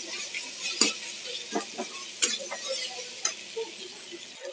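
Onion-tomato masala sizzling in oil in a kadai, with a spatula scraping and tapping against the pan several times as it is stirred. The masala is being fried until the tomato cooks down.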